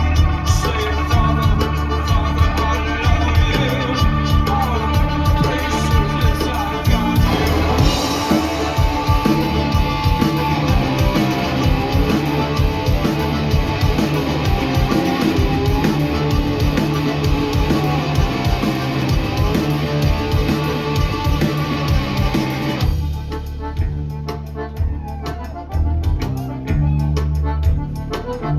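Rock band playing a song live, with drum kit and guitar. About 23 seconds in, the band drops back to a thinner, quieter passage.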